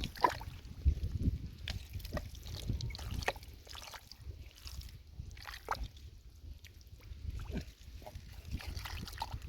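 Wet mud and water being worked by hand: irregular squelches, sloshes and drips, with scattered small knocks.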